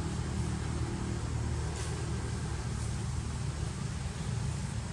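Steady low rumble of background noise, with one faint click about two seconds in.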